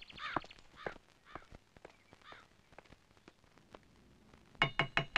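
Crows cawing, a string of short calls over the first couple of seconds. Near the end come a few sharp knocks with a metallic ring.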